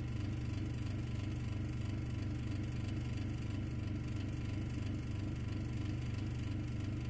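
Steady engine drone with an even, pulsing low rumble, used as the sound of the spaceship's engine as it cruises.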